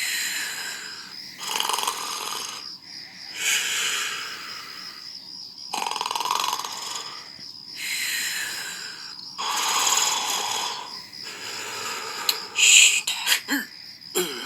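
Cartoon snoring of the sleeping Gulli mascot: slow, breathy snores in and out, one roughly every two seconds, over a steady high tone. Near the end a sharper, brighter sound breaks in.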